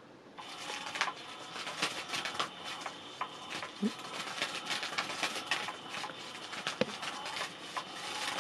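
Battery-powered electric cat-teaser toy running, its wand sweeping about under the fabric cover: a fast, continuous scratchy rustling and clicking with a faint motor hum.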